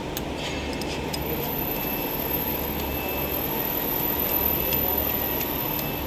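Steady hum and drone of factory machinery running, with a thin high whine that starts about a second in and stops near the end, and a few faint light clicks.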